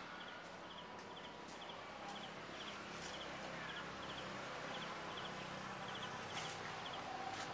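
Outdoor rural ambience with a faint, high, short chirp repeating about twice a second, and a few light sharp knocks.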